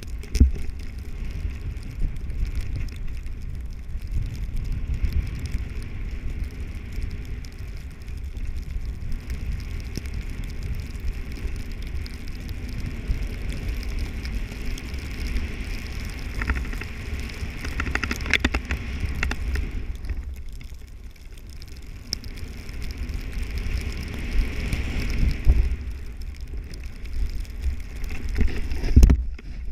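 Wind rumbling on the microphone during a fast ride down a powder run, over a steady hiss of snow under the rider's edges. There is a brief cluster of sharper scrapes about 18 seconds in and a louder thump near the end.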